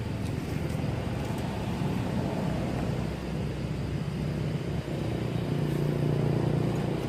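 Low, steady hum of a motor vehicle engine running, growing louder near the end.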